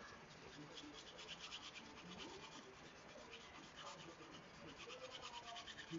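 Aritsugu santoku blade being stroked back and forth on a whetstone, in faint, quick, regular scraping strokes, while the stepped factory bevel is ground into a smooth convex (hamaguri) edge.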